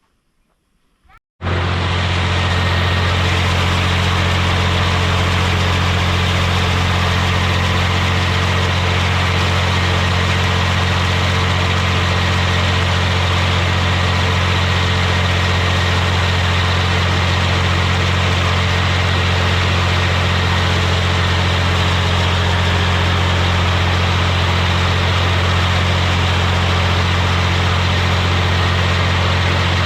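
Tractor engine running at a steady, unchanging speed, cutting in abruptly about a second and a half in.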